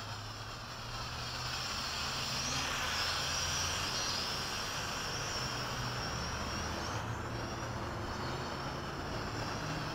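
Hubsan H502E quadcopter's motors and propellers whining steadily in flight, swelling slightly in the first couple of seconds, with the pitch drifting gently up and down.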